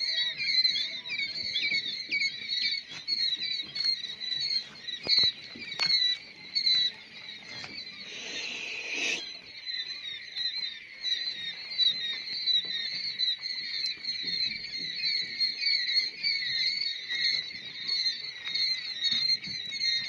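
A brooder full of quail chicks peeping nonstop, hundreds of short, high, falling calls overlapping into one continuous chorus. A brief rushing noise cuts across it about eight seconds in.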